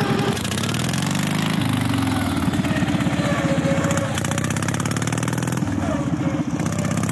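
Racing lawn mower's engine, loud, pulling away under throttle: its revs climb and fall back sharply three times, then climb again.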